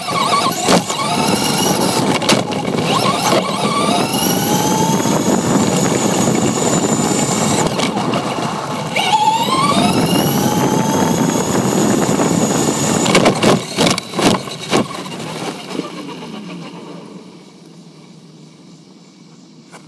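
Small electric RC car's motor and gears whining, rising in pitch as it speeds up from about a second in and again from about nine seconds in. Under the whine is a rough rumble of its tyres on the pavement. The sound dies away after about thirteen seconds as the car slows.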